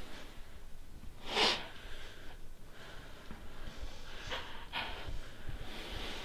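A person breathing heavily through the nose: one loud, sharp breath about a second and a half in, then two shorter breaths a little after four seconds.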